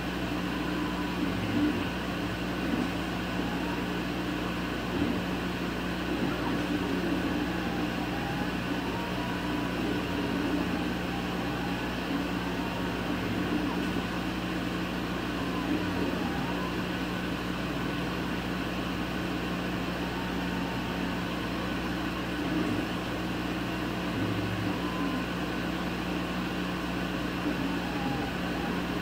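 Laser cutter running through a cut: a steady hum from its air-assist and ventilation, with the moving head's motors whining in short rising and falling glides as it travels between points.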